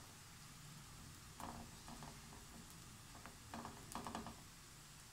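Faint soft scrapes and taps of a metal spoon spreading vegetable stuffing over a paratha in a nonstick frying pan, a few times over a low steady hiss.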